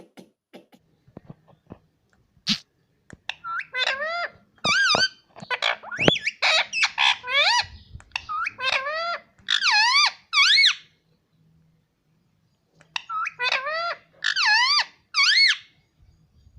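Parrot giving a series of shrill calls whose pitch wavers up and down, in bursts with a pause of about two seconds in the middle. A few soft clicks come in the first seconds.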